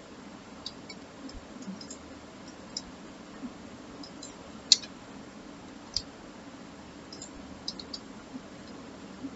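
Scattered, irregularly spaced sharp clicks of a computer mouse and keyboard, the loudest a little before halfway, over a faint steady low hum.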